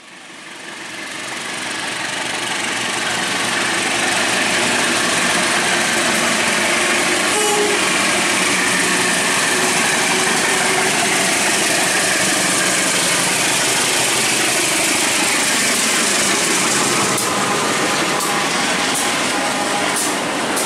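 Diesel-electric locomotive hauling a passenger train past: engine running and wheels rumbling on the rails. The sound grows louder over the first few seconds as it approaches, then holds steady as the carriages pass, with a few sharp clacks near the end.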